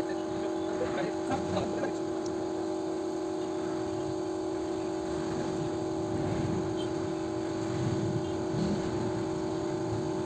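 Steady mechanical hum holding one constant tone, with a low rumble beneath it.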